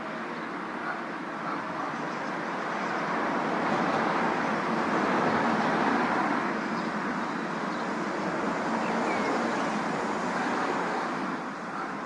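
Steady outdoor city noise of traffic and wind, a rushing sound that swells in the middle and eases off near the end.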